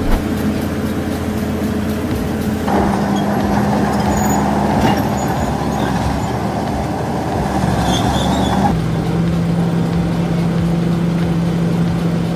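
Heavy vehicle engines running steadily, the sound changing abruptly about three seconds in and again near nine seconds.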